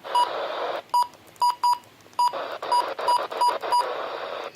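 Weather radio receiver being switched on and tuned: about nine short, identical key beeps at irregular intervals as its buttons are pressed, over radio static hiss that cuts out for a stretch after the first second and returns about two seconds in.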